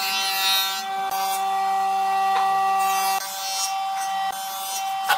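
A power tool working wood: a steady motor tone under a scraping, rasping noise that comes and goes.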